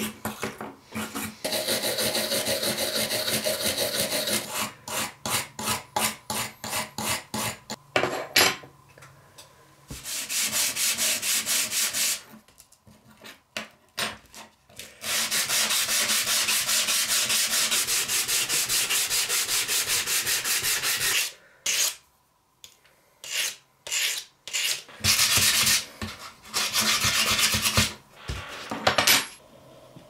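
Rusty steel pocket-knife parts being scrubbed with a hand wire brush and rubbed with a sanding block on a wooden bench: fast back-and-forth rubbing strokes in several bursts, with short pauses between them.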